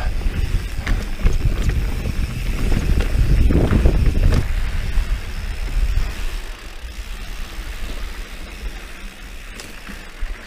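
Mountain bike riding down a dirt and rock trail: tyres rumbling over the ground, with scattered clicks and rattles from the bike and wind buffeting the microphone. The rumble eases about six seconds in.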